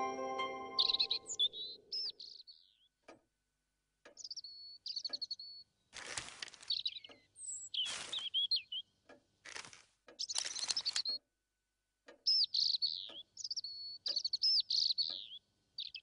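A robin chirping and twittering in short phrases of high calls that glide up and down, with several brief rustling bursts in between.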